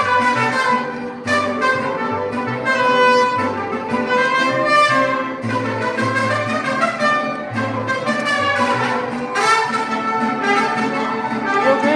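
Loud music with horns and strings playing over a bass line that steps from note to note.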